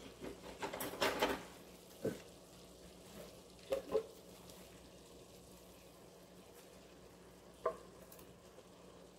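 Ground beef and diced vegetables sizzling softly in a stainless steel skillet, with a faint steady hum. A few light clicks and knocks of kitchen utensils, mostly in the first second and a half, with single knocks later as red salsa is poured into the pan from a blender jar.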